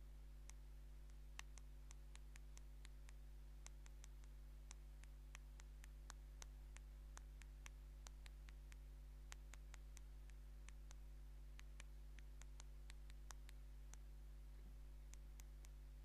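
Fingernails tapping on an older LG touch-screen phone while texting: faint, irregular clicks, a few a second, over a steady low hum.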